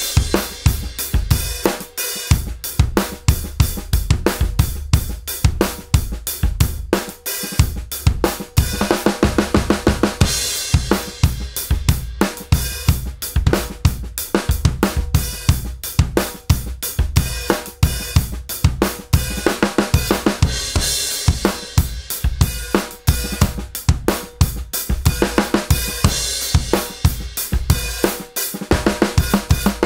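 Drum kit played in a steady groove: a Rogers Powertone 20-inch bass drum with an Evans clear EQ4 batter and EQ3 resonant head, struck by a hard plastic beater, along with snare, hi-hat and cymbals. The kick is tuned with the resonant head a major third above the batter, and switches later to a perfect fourth above it.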